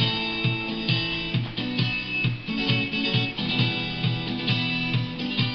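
Instrumental guitar intro of a rock song: guitar chords played in a steady rhythm over a low note pulsing about three times a second, with no singing.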